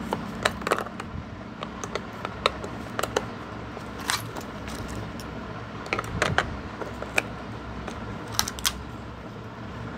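Irregular plastic clicks and taps of batteries being fitted into the battery compartment of an automatic blood pressure monitor, with handling of the casing.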